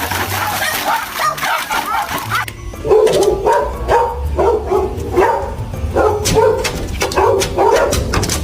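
A dog barking and yapping in quick repeated calls over background music with a steady bass beat; the barking starts about two and a half seconds in.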